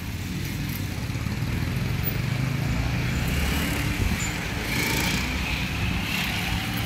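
Street traffic: cars passing on a busy road with a steady low engine rumble, building slightly over the first couple of seconds.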